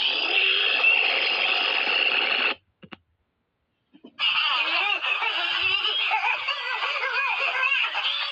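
Electronically altered variations of the Bullwinkle cartoon sneeze sound effect, heavily processed into a dense, warbling, voice-like noise. The first cuts off about two and a half seconds in, and after a second and a half of silence another variation starts.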